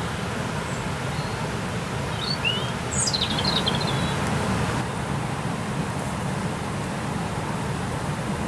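Steady low outdoor background rumble, with a small bird chirping a few quick rising notes around the middle.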